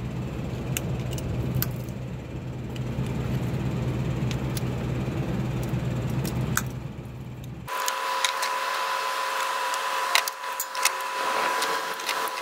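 Scattered sharp metallic clicks and clinks of locking hose-clamp pliers and fittings being handled on coolant hoses, over a steady low hum. A little over halfway the hum cuts off suddenly and a steady high-pitched tone takes its place.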